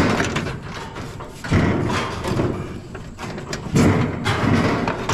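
Scrap metal knocking and scraping as a rusty steel piece with a wheel is worked into a pickup bed piled with metal. Heavy knocks come about one and a half seconds in and near four seconds, with grinding, rattling contact between them.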